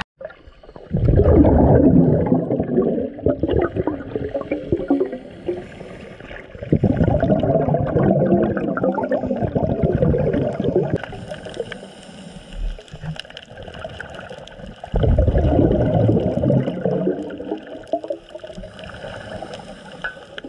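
Scuba divers' exhaled air bubbling out of their regulators, heard underwater: three long bursts of bubbling, one with each breath out, a few seconds apart, with quieter water noise between.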